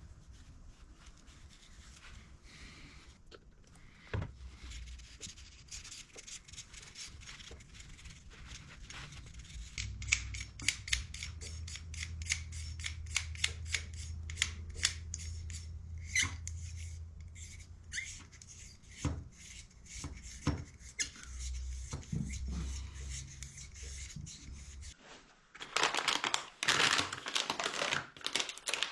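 Hands working with tools and parts: a run of sharp clicks and rubbing, with a low hum for several seconds in the middle, then a louder, noisier rustle starting near the end.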